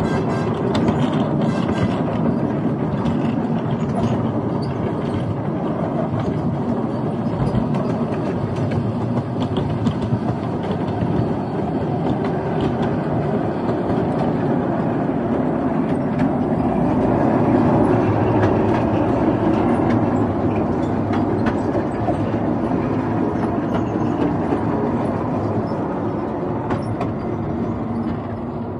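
Miniature railway ride-on carriages running along the track, wheels rumbling and clicking over the rail joints. It grows louder for a few seconds midway as the train passes through a tunnel.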